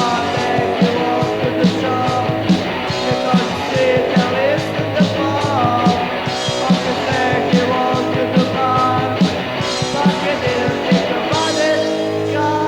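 Hardcore punk band recording from an old cassette: electric guitars and a drum kit keeping a steady beat, with a voice singing over them. Near the end the drum hits stop and held guitar chords ring on.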